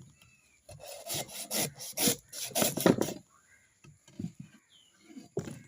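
Coconut being scraped: about seven quick, rhythmic scraping strokes over two and a half seconds, then a few light knocks.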